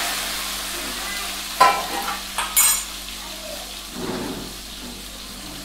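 Hot oil sizzling in a large aluminium pot as cut vegetables are tipped in onto frying whole spices. The sizzle fades over the few seconds, with a couple of brief clinks a second or two in.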